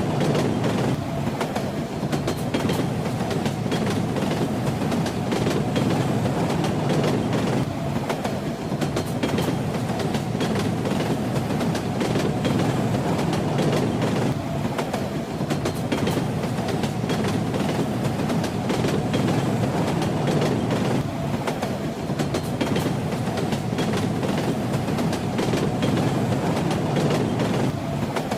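Train running steadily on the rails: a constant low rumble with the clatter of its wheels.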